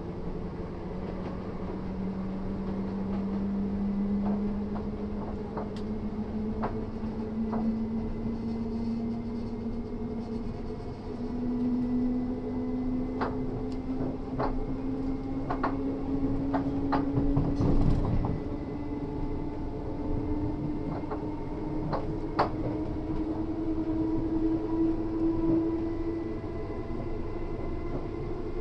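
Running sound of a Class 317/7 electric multiple unit with nose-suspended traction motors: the motor and gear whine climbs slowly and steadily in pitch as the train gathers speed, over a steady rumble of wheels on rail. Sharp clicks and knocks come every second or so, with a heavier thump about two-thirds of the way through.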